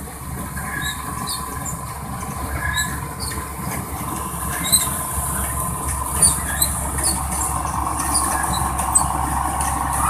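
Combine harvester running while harvesting, with a steady drone from its engine and threshing machinery that grows louder toward the end as the machine comes close. Short high squeaks and a few sharp clicks are scattered through it.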